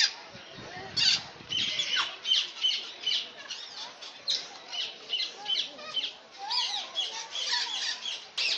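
Parrots squawking and chattering: a rapid run of short, high calls, several each second, with a few lower gliding notes about two-thirds of the way through.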